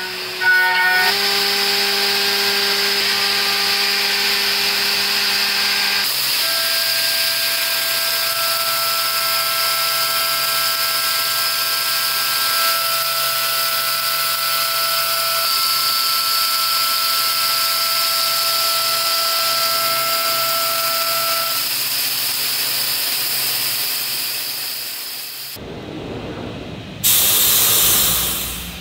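DN Solutions DNM 5700L CNC mill cutting aluminum soft jaws with an end mill: a steady cutting whine over a constant hiss of coolant spray, the whine's pitch shifting about one second and six seconds in. The cutting sound stops abruptly near the end and gives way to a short, loud rushing noise.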